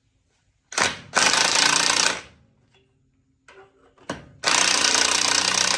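Impact wrench hammering, run twice in bursts of about a second each, each time starting with a brief spin, as it snugs down cylinder head nuts.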